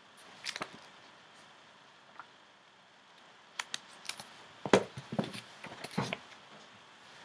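Softcover books and paper catalogues being handled and flipped through: short paper rustles, page flicks and light knocks of covers. One comes shortly after the start, then a quick run of them from a little past halfway, the sharpest about two-thirds of the way in.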